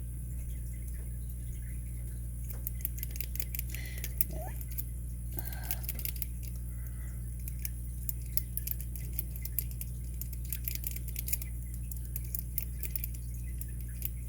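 Light metallic clicking and scraping of a lock-pick rake being worked into the tiny keyway of a vintage Master Lock No. 7's four-pin brass pin-tumbler cylinder, the rake barely fitting and the core pinching under tension. A steady low hum runs underneath.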